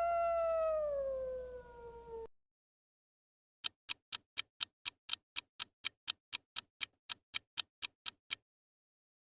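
A coyote howls: one long note that slowly falls in pitch and fades out over about two seconds. After a short silence, a countdown clock ticks about four times a second for roughly five seconds.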